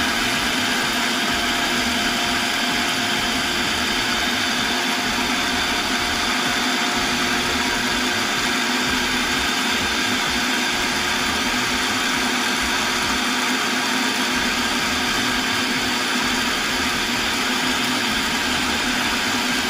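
Small food processor's motor running steadily as its blade grinds roasted peanuts into a crumbly meal, with an even, unchanging hum.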